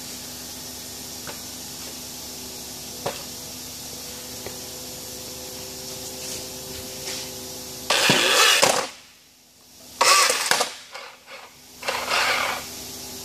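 Featherweight axe combat robot running on a workshop floor: a steady hum with a few light clicks, then, about two-thirds of the way in, three loud rough bursts of its mechanism roughly two seconds apart.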